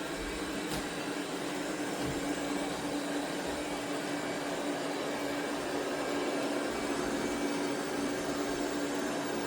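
eufy 11S Max robot vacuum running with a steady whirring hum.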